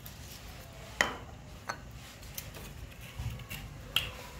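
A few sharp clicks and clinks of kitchen items being handled, the loudest about a second in, over a faint low hum.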